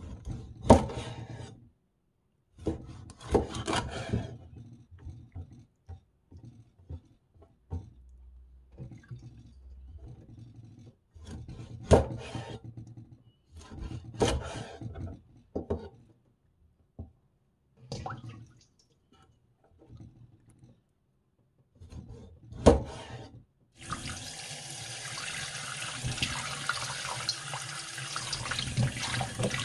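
A large kitchen knife chopping through mackerel onto a wooden cutting board: a series of separate sharp chops, each cutting through the fish's backbone into the board. About 24 seconds in, a kitchen tap starts running in a steady stream onto hands rinsing the fish pieces over a stainless steel bowl.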